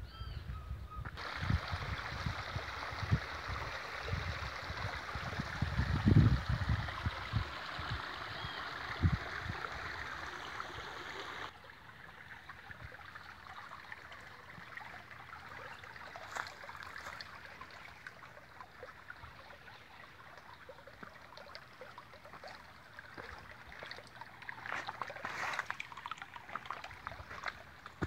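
Shallow stream running and rippling over rocks, with a few low thumps in the first half. About a third of the way in the water sound drops suddenly to a fainter steady flow.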